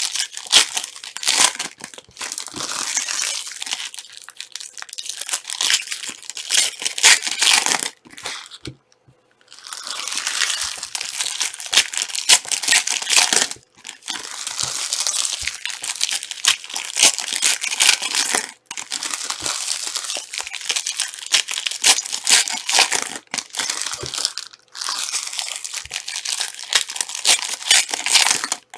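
Trading card pack wrappers crinkling and tearing as packs are opened and handled, in long crackling runs with a few brief pauses.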